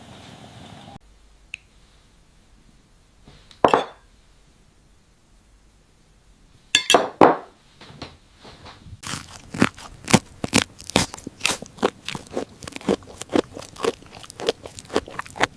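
Crunchy fried food, a Korean corn dog, being bitten and chewed. There are a couple of separate crunches early on, then a steady run of about two crunches a second through the second half.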